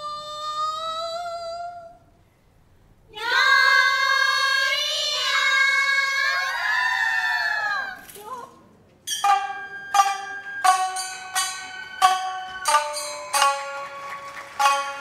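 Traditional Japanese stage music: a woman's held sung note ends about two seconds in. A group of women's voices then sings a long, sliding phrase, and from about nine seconds shamisen are plucked in a steady rhythm of sharp notes.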